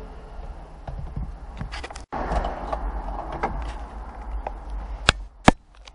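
Scattered clicks and knocks of hands working loose the car's plastic dashboard trim and fittings, with two sharp, loud clicks about half a second apart near the end.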